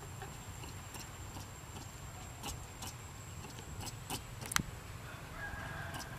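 Faint outdoor ambience: a steady low rumble and a thin, steady high whine, with scattered small clicks (the sharpest about four and a half seconds in). A faint animal call comes near the end.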